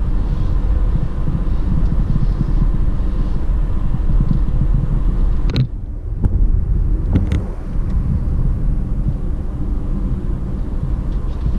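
Car driving, heard from inside the cabin: a steady low rumble of engine and tyre noise. About halfway through there is a sharp click, followed by a few lighter knocks.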